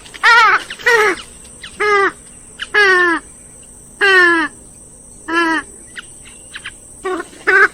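Grey-headed swamphen giving a series of about seven loud nasal calls, each a short falling, quavering note, spaced a second or so apart with a longer pause near the middle.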